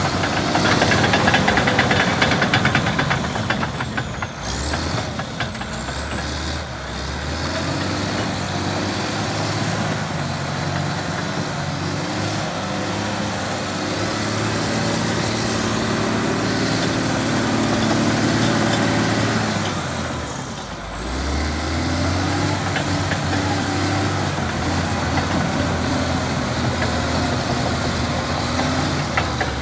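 1998 Dresser TD15E crawler dozer's diesel engine running as the machine drives over gravel, with clatter from its steel tracks. The engine note drops briefly about two-thirds of the way through and then picks up again.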